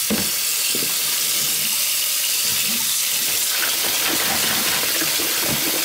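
Cold water from a kitchen tap running steadily into a plastic bowl of seeds in a stainless steel sink.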